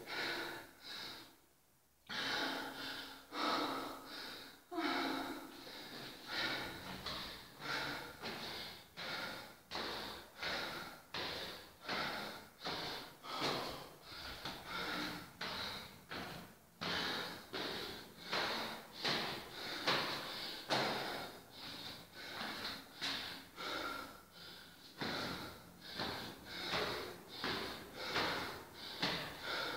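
A woman breathing hard and fast through her mouth, in a steady rhythm of roughly one breath a second, out of breath from climbing many flights of stairs. There is a brief gap about a second in.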